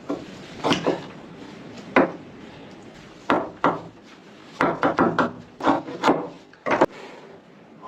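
Wooden knocks and clunks: irregular sharp strikes of wood on wood, some single and a quick cluster of several about two-thirds of the way through.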